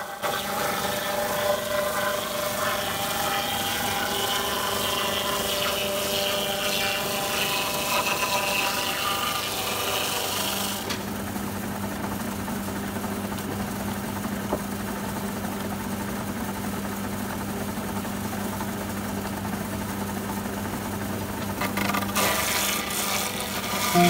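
Electric log-debarking machine's spinning cutter head shaving bark and wood from a pole fed through by hand: a rasping scrape over the motor's steady hum. About halfway through the scraping stops and the motor runs on empty with only the hum, until the cutter bites into the next log near the end.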